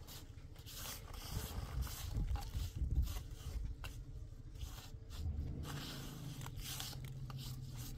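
Irregular scraping and rustling.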